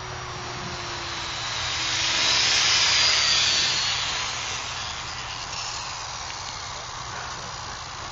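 Align T-Rex 500 electric model helicopter in autorotation, its main rotor blades swishing with the motor unpowered. The rushing swish swells to its loudest about three seconds in, then fades.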